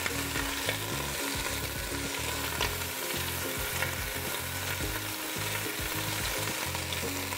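Clams sizzling in hot oil in a stainless steel pot: a steady frying hiss.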